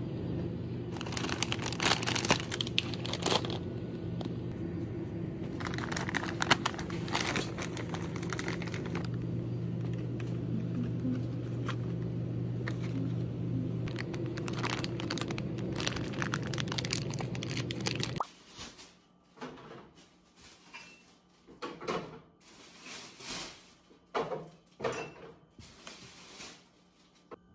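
Plastic snack bags crinkling as they are handled, over a steady hum from convenience-store refrigerated coolers. About eighteen seconds in the hum stops, and scattered light taps follow as fingertips tap a smartphone lying on a wooden table.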